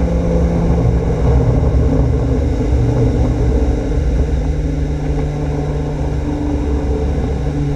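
Tow boat's engine running steadily at towing speed, with water rushing past the hull.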